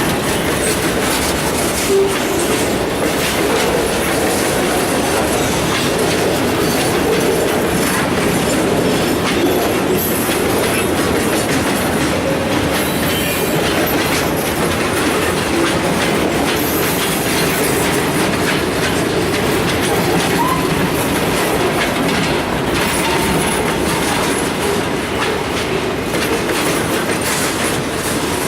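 Freight cars rolling past at a road crossing: a steady loud rumble of steel wheels on rail, with continual clickety-clack of wheels over rail joints.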